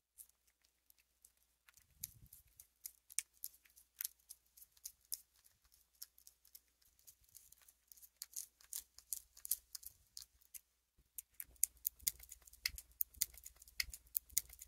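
A cat licking puree from a squeeze-tube treat: soft, quick wet tongue clicks, coming faster and thicker in the last few seconds.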